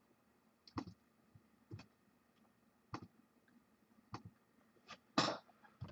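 Scattered single clicks from a computer mouse and keyboard, about one a second, as results are copied and pasted; the click a little after five seconds in is slightly longer and louder.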